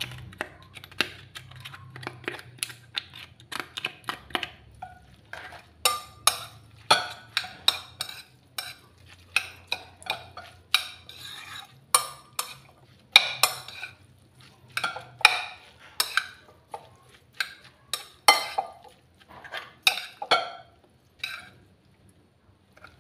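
A metal spoon clinking and scraping against a ceramic bowl in irregular knocks while a stuffing mixture is stirred and scooped into crab shells.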